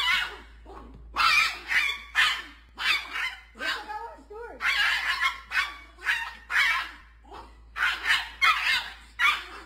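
Yorkshire terrier barking in repeated short, high yaps, about one or two a second, mixed with a toddler's laughter.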